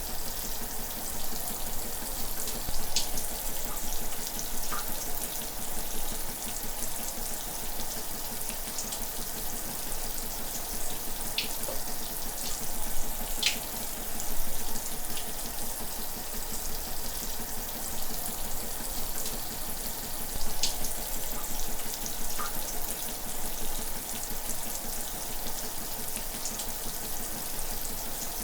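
Shower running: a steady hiss of water spray falling, with an occasional brief splash or drip standing out.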